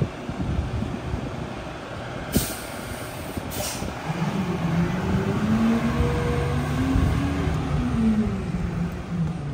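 Mack LEU garbage truck with a McNeilus rear-loader body pulling away from a stop: two short hisses of air from the brakes about two and three seconds in, then the diesel engine revs up, its pitch rising and dropping as it shifts through the gears and moves off.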